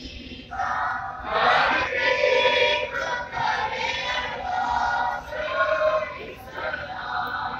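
A Sikh congregation chanting together, many voices joined in sustained phrases of a second or two with short breaks between.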